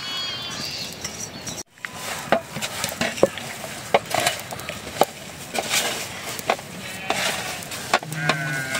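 Hands mixing and kneading flour dough in a metal plate, with scattered scrapes and light knocks against the metal.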